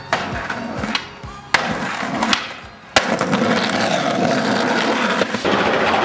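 Skateboards being ridden: several sharp cracks of boards popping and landing, and from about three seconds in a steady rumble of wheels rolling on pavement.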